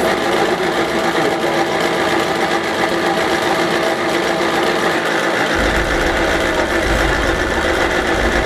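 Electric blower motor set on a live-steam locomotive's chimney, running with a steady whine to draw the fire while steam is raised. A low rumble joins a little past halfway.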